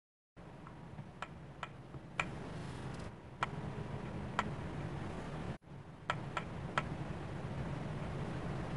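Fingertips tapping on a tablet's glass touchscreen while typing Braille chords: a scattered run of short, light taps, some in quick pairs, over a low steady hum.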